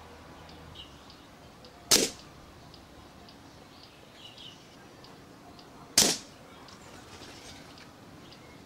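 Two shots from an Air Arms S400 precharged pneumatic air rifle, about four seconds apart: each a sharp crack of released air that dies away quickly.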